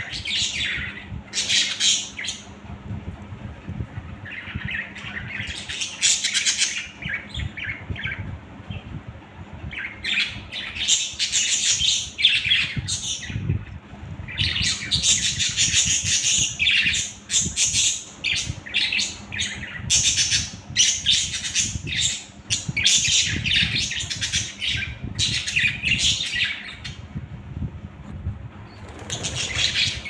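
A caged flock of budgerigars chirping and chattering, coming in bursts of rapid calls with short lulls between them.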